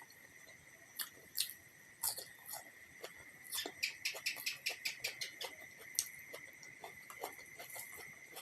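Close-miked eating sounds: chewing and smacking of food, with a quick run of chews about four or five a second through the middle, over a steady faint high-pitched tone.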